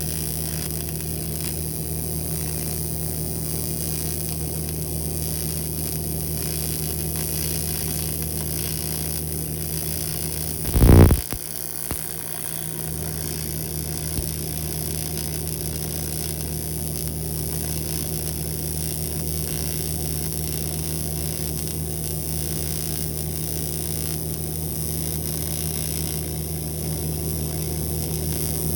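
Aluminium TIG welding: a steady electrical buzz and hiss, as an AC welding arc or welding machine makes. About eleven seconds in comes a short, much louder pitched buzz.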